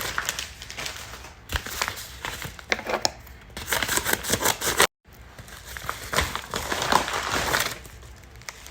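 Packaging crinkling and rustling in irregular bursts as a parcel is unwrapped by hand, cut off by a brief gap about five seconds in.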